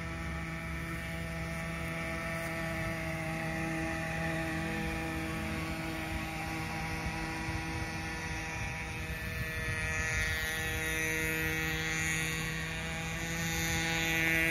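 Nitro RC boat's small glow-fuel engine running at a steady high pitch out on the water, getting louder near the end.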